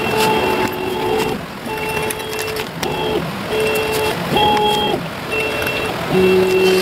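CNC router's drive motors whining in steady tones that switch pitch every half second to a second as the axes move the spinning utility-knife blade around the panel. A lower, louder tone comes in near the end.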